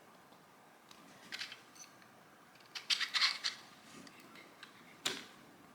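Light clicks and rattles of small 3D-printed plastic parts being handled as a wheel is fitted onto a toy car's axle: a couple of taps about a second and a half in, a short flurry of clicks around three seconds, and one sharp click near the end.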